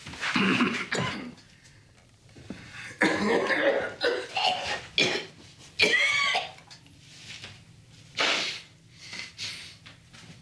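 A man's hard coughing fit: irregular hacking coughs with wheezing, gasping breaths between them, weakening towards the end.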